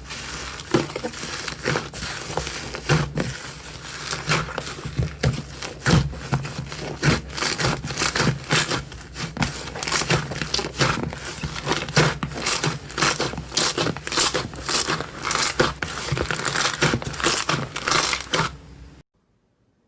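Slime being squeezed and worked by hand, making a dense, continuous crackling and popping. The sound cuts off suddenly near the end.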